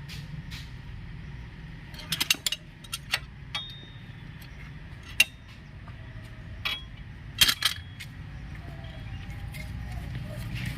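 Sharp metallic clinks and taps of tools and drum-brake parts being handled: a quick cluster about two seconds in, then single clicks spaced out over the following seconds, over a steady low hum.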